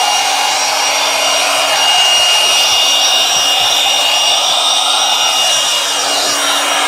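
Small corded electric air-mattress pump running steadily as a blower: a constant high whine over a rush of air.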